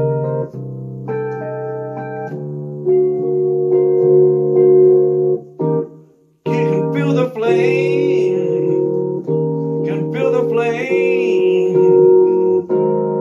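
Electric piano playing held chords in a jazz-blues instrumental passage, with a fast shimmer on the sustained notes. The music stops almost completely for a moment about six seconds in, then comes back with a higher lead line that bends and wavers over the chords.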